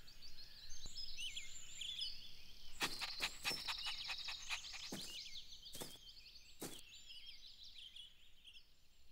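Quiet background birdsong: many short, quick chirps and twitters, with a few sharp clicks between about three and seven seconds in.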